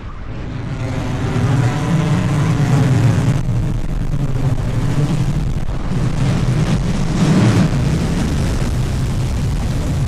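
SpaceX Starship's Raptor rocket engines firing in the landing burn: a loud, rough rumbling roar that swells over the first couple of seconds and then holds.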